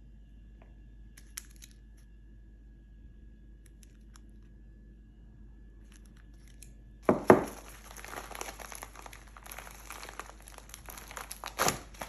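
Packaging being crinkled and torn open during an unboxing. It is quiet at first, then from about seven seconds in comes a loud sudden crackle, followed by a run of crinkling and a second loud crackle near the end.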